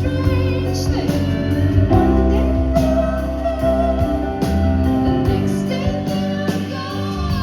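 Live pop band music: sustained chords from the instruments, with some singing over them.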